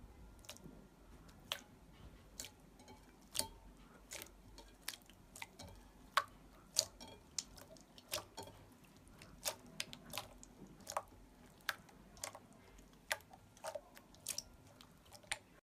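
Clear slime squished and poked by fingers in a glass bowl, giving irregular sharp wet clicks and pops, two or three a second.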